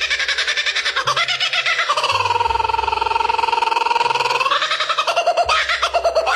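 Fowl-like bird calling: a fast rattling series of pulses, with a longer drawn-out note in the middle.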